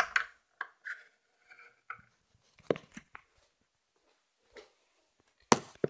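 Scattered light taps and knocks of a plastic toy house and figure being handled close to the microphone, with a sharper knock near the end.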